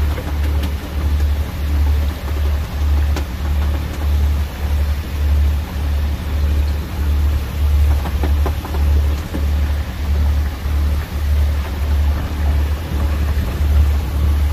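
Fishing boat's engine running with a low throb about twice a second, over a steady hiss of water spraying from the boat's side onto the sea.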